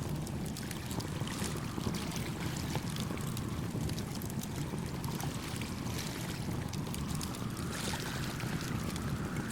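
Wood fire crackling with frequent small pops over a steady low rush of wind and gentle waves. A soft whooshing swell builds near the end.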